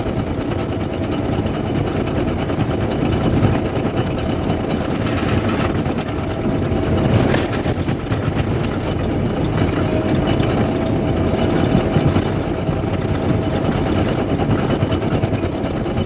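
Cat D5K LGP bulldozer's diesel engine running steadily while its steel tracks clatter as the machine travels, heard from inside the cab. A thin steady whine runs through it, and there is one sharp knock about seven seconds in.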